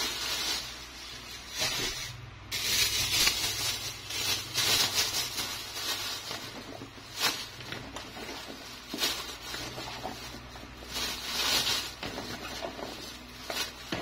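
A thin plastic bag crinkling and rustling in irregular bursts as pieces of cut squash are packed into it by hand, with hands scooping squash pieces in a plastic basin.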